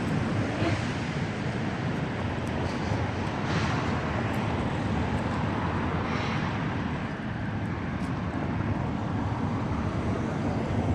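Steady rumble and hiss of wind on the microphone mixed with engine noise, swelling briefly a few times.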